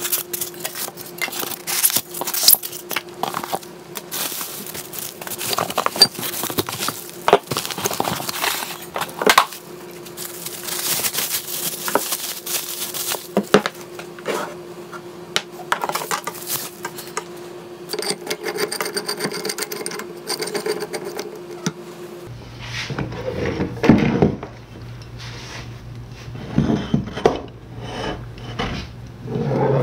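Unpacking a 10-ton hand hydraulic pump: cardboard, foam inserts and wrapping rustled and pulled out, then the steel pump and its rubber hose handled, knocked and slid on a wooden workbench, in irregular knocks and scrapes.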